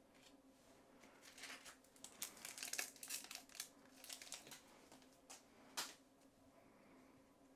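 A trading-card pack's wrapper (2001-02 Upper Deck Rookie Update Hockey) being torn open and crinkled in a few seconds of dense crackling, followed by two sharp clicks.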